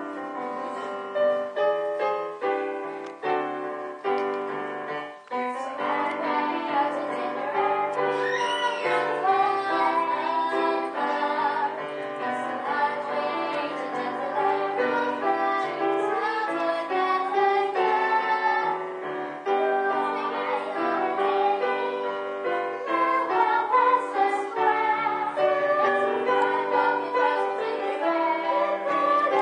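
Two young girls singing a First World War marching song as a duet into a microphone, with piano accompaniment.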